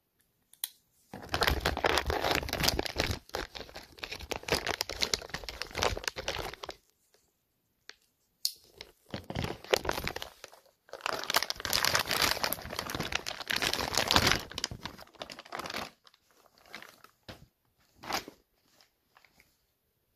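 Plastic vacuum-pack bag crinkling and crackling as it is pulled open by hand, in two long stretches with a few short crinkles near the end.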